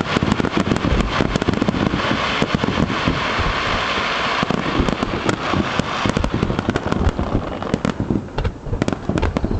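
Aerial fireworks: a rapid, continuous barrage of bangs and crackles, with a steady hiss that dies down about halfway through.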